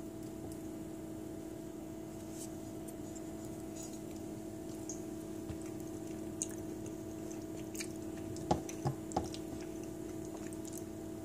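A steady electrical hum, with faint clicks and three sharp taps of a metal fork against a ceramic plate about eight and a half seconds in as it scoops up a bite of soft, creamy risotto.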